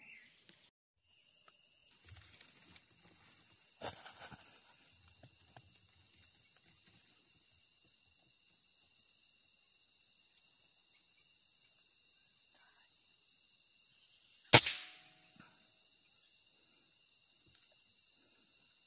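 Steady high-pitched insect chorus starting about a second in, with one sharp crack of an air rifle shot about three-quarters of the way through, the loudest sound, followed by a short ring.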